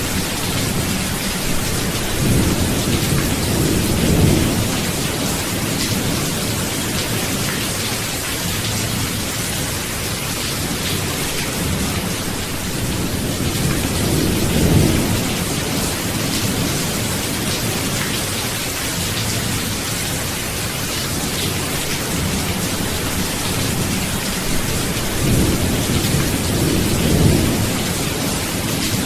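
Steady rain with low rolls of thunder, three of them: one a few seconds in, one around the middle and one near the end.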